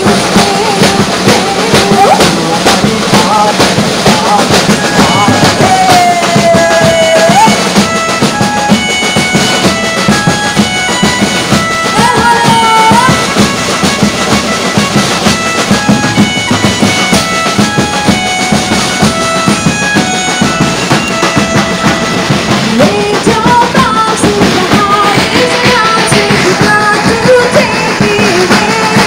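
Loud amplified Navratri garba music. A singer's voice glides over a fast, steady drum beat, backed by sustained instrumental tones.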